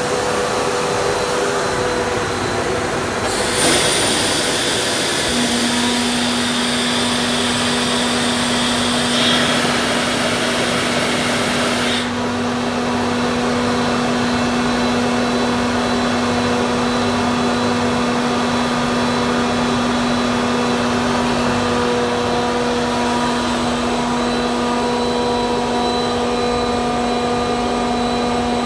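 Grassair S 87.13 SFX rotary screw air compressor running loaded and building pressure: a steady, loud machine drone with a held low tone. A loud hiss lies over it for several seconds early on and cuts off sharply about twelve seconds in.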